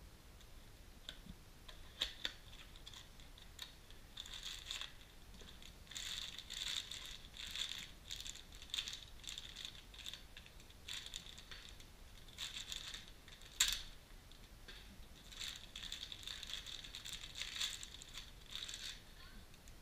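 Clear plastic bag crinkling as a ball joint is unwrapped, with a small cardboard box being handled. The crinkling comes in irregular bursts, with a couple of sharp clicks, one about two seconds in and a louder one past the middle.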